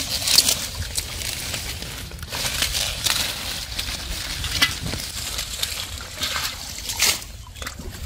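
Hands sloshing and splashing through shallow muddy water among water hyacinth, in irregular bursts with a few sharp splashes.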